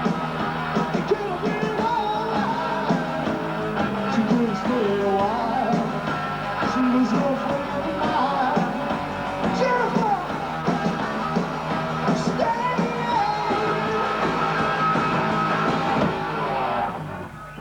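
Live rock band playing, with a melodic lead line gliding over the band; the sound drops away near the end as the performance finishes.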